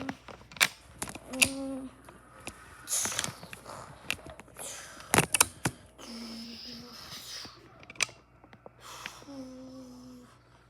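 A child's voice giving several short hummed notes on one pitch, between clicks, taps and a few breathy hissing sounds.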